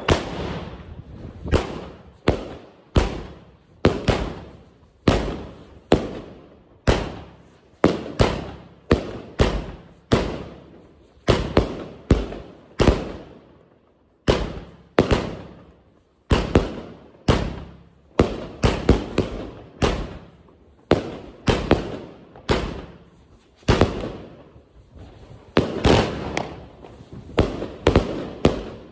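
Wolff 'Decibell' firework cake firing shot after shot: a string of sharp bangs, about two a second, each trailing off in echo, with two brief pauses near the middle.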